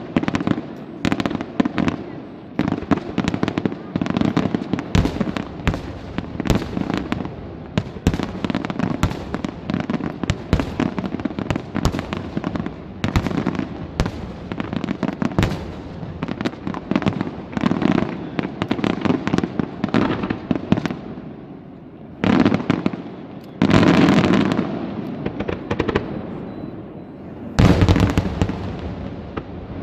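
Fireworks display: a rapid, near-continuous string of bangs and crackles, then three heavier, longer blasts in the last third.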